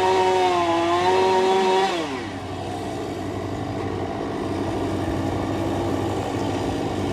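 Chainsaw running at high revs; about two seconds in the revs fall away, and the engine keeps running lower and rougher.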